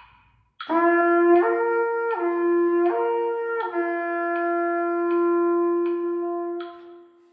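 Trumpet playing a lip-slur flexibility exercise over a metronome clicking at 80 beats per minute: it slurs up to a higher note and back down twice, one note per click, then holds the lower note for about three and a half seconds.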